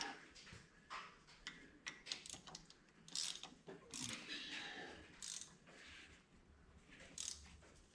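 Hand ratchet clicking in short, irregular bursts as the Torx bolts on a driveshaft flange are run in and tightened, with pauses between strokes.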